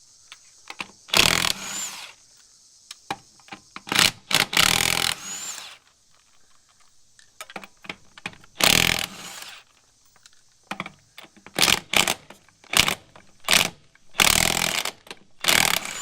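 Brushless 20-volt cordless impact wrench rattling lug nuts loose on a truck wheel, in about a dozen short bursts of under a second each with pauses between.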